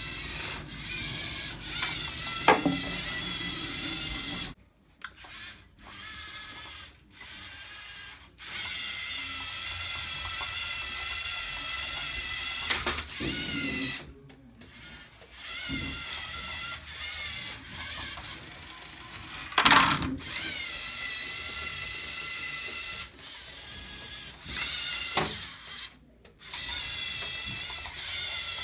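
LEGO Mindstorms robot's electric motors and plastic gears whining as it drives and works its attachments. The whine stops and starts several times, with a few sharp knocks of parts striking.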